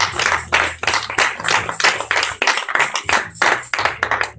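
Congregation clapping and applauding, many hands at once, over a low steady hum, dying away at the end.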